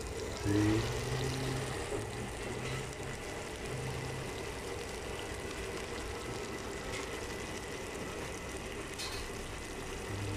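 Mapo tofu sauce boiling and sizzling in a freshly served, still very hot stone pot, a steady hiss of bubbling.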